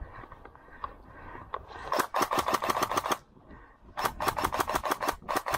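Airsoft electric gun firing two rapid full-auto bursts: the first about two seconds in and lasting about a second, the second starting about four seconds in and still going at the end, each a fast even run of sharp clicks over a whirring gearbox.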